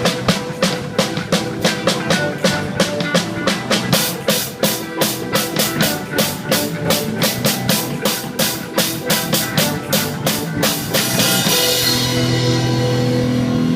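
Live reggae-dub band playing, the drum kit keeping a steady beat of about four hits a second. About eleven seconds in, the beat stops and the song ends on a cymbal wash and a held low chord.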